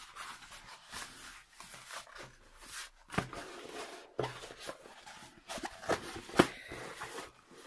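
Diamond-painting canvas with its glossy plastic cover being unrolled and flattened by hand: irregular crinkling and rustling with a few sharp taps and clicks, the loudest about six seconds in.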